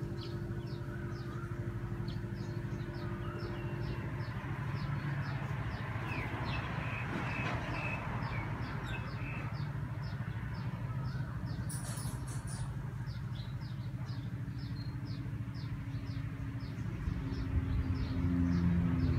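Birds chirping over a steady low mechanical drone: a run of short, quick chirps repeats about three times a second, with other calls about six to nine seconds in. The drone grows louder near the end.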